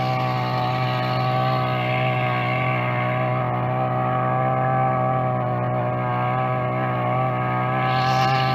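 Backpack brush cutter engine running steadily while its disc attachment cuts a trench in the soil, with background music.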